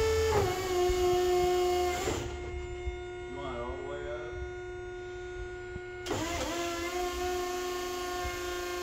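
Electric lift truck's hydraulic pump motor whining steadily as the forks are raised on the mast. The pitch drops just after the start, the whine eases off about two seconds in, then picks up again about six seconds in and holds steady.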